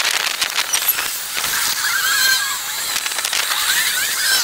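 Fast-forwarded night street sound from a city tram stop: a dense, continuous crackle of rapid clicks with short squeaky chirps wobbling in pitch.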